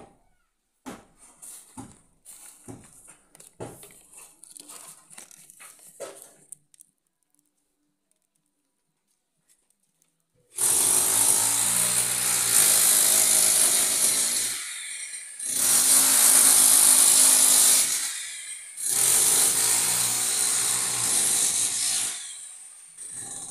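A power tool running loudly in three runs of about three to four seconds each, with short pauses between them, after some scattered light knocks.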